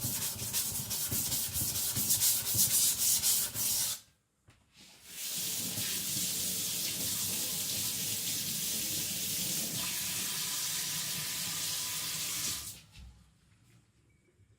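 Steel cleaver blade ground back and forth on a wet whetstone while being thinned. It starts with rapid rhythmic scraping strokes, pauses briefly about four seconds in, then goes on as a steadier continuous grinding that stops a couple of seconds before the end.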